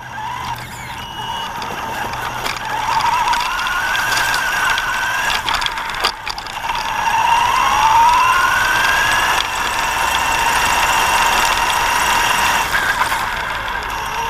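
Axial Yeti RC car's electric motor whining under throttle, its pitch rising and falling as it speeds up and slows, with a long climb in pitch a little past halfway, over the noise of the tires and drivetrain.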